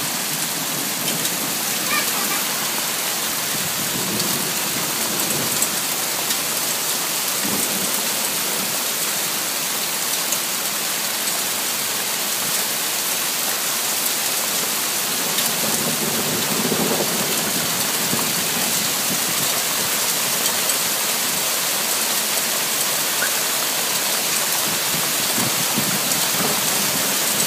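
Hard rain pouring down steadily, a dense, even hiss that keeps the same level throughout.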